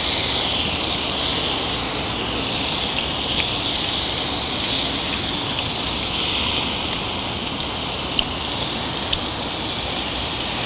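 Ribeye beef sizzling on a grill: a steady hiss with scattered small pops.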